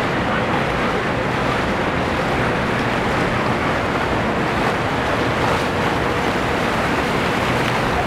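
Twin outboard motors on a center-console boat running steadily as it passes, mixed with the rush of its wake on the water and wind noise on the microphone.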